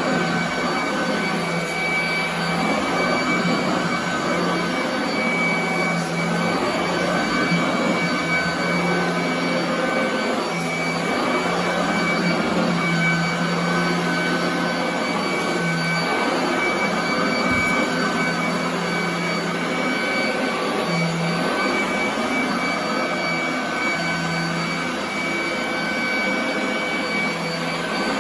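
Royal commercial vacuum cleaner running continuously on carpet: a steady rushing of air with a fixed high motor whine and a low hum that wavers slightly as it is worked.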